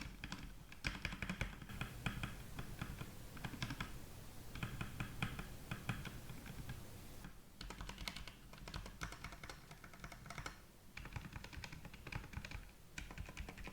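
Typing on a Redragon Fizz Pro K616 60% mechanical keyboard with Redragon red linear switches on a plastic plate: quick runs of light key clicks, broken by a few short pauses, with no rattle from the keys.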